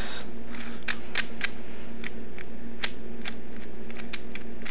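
Plastic 3x3 speed cube being turned by hand: about a dozen sharp clicks at uneven spacing as the layers turn and snap into line.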